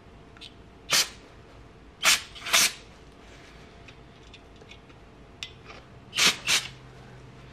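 Aerosol can of non-chlorinated brake parts cleaner sprayed through its red extension straw in five short hissing bursts: one, then a pair, then another pair near the end.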